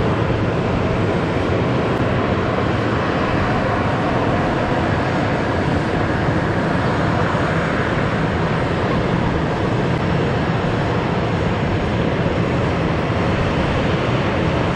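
Boeing 737-800's CFM56 jet engines running at taxi idle, a steady, even noise with no change in level.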